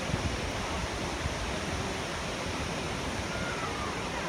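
Shallow rocky stream flowing over stones: a steady, even rush of running water.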